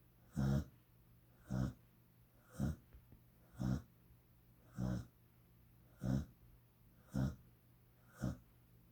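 A sleeping dog snoring loudly: eight short snores in a row, about one a second, evenly spaced.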